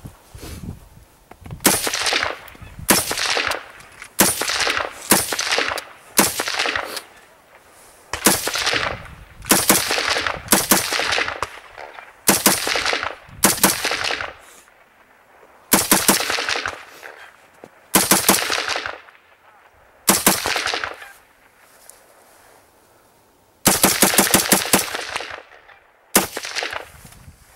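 AR-15 rifle firing semi-automatic shots, each with a trailing echo. The shots come singly and in quick pairs for the first twenty seconds, then as a rapid string of about a dozen shots in under two seconds, followed by a few more near the end.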